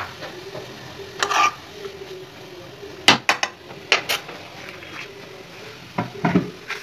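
A spoon stirring grated carrot in a metal kadai, scraping the pan and striking its rim in sharp clinks, a cluster of them in the middle and two more near the end.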